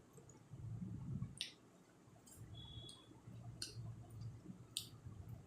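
A person chewing food, with wet mouth clicks and lip smacks about once a second.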